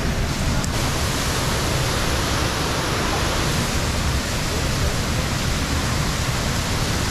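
Waterfall close by: a steady, unbroken rush of falling water.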